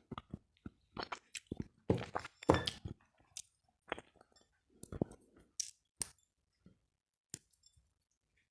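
Crunchy chewing: irregular crisp crunches and bites, loudest in a cluster about two to three seconds in, with short quiet gaps between.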